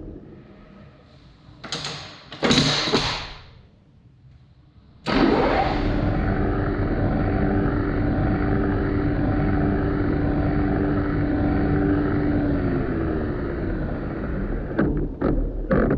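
Manual metal lathe changing speed. Two loud bursts of clatter come about two and three seconds in. About five seconds in the lathe starts suddenly and runs steadily with a hum of gear whine. A few loud knocks come near the end.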